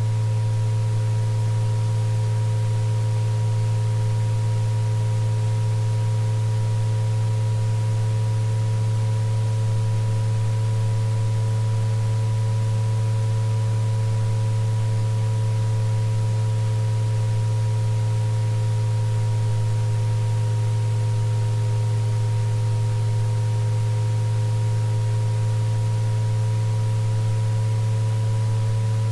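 Synthesized sound-therapy tones for tinnitus relief: a loud, steady low hum with several quieter, higher sustained tones layered over it, two of them slowly wavering in pitch, over a faint hiss. The sound holds unchanged throughout.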